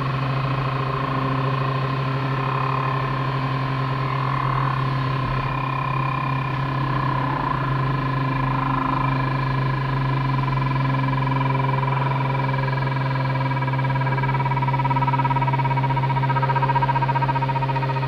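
A strange mechanical tone in a Cessna 210 Centurion in its takeoff climb, held over the steady drone of the engine at full power and slowly dropping in pitch as it goes on. It is unidentified, and the pilot says it sounded like the stall horn.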